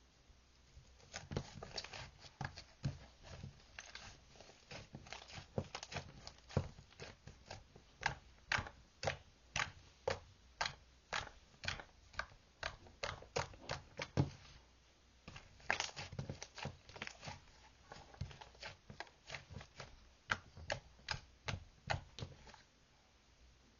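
A run of sharp, irregular clicks or taps, two to four a second, pausing briefly about fifteen seconds in before going on.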